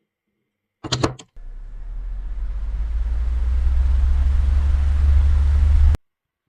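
A short clatter of knocks, then a motor-driven machine starting and running with a low hum and rushing noise that grows steadily louder before cutting off abruptly.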